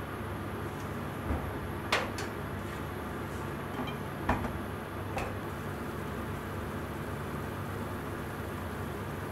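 Pot of beef tendon and daikon simmering on a gas hob, a steady bubbling hiss. A few sharp light clicks come in the first five seconds, loudest about two and four seconds in.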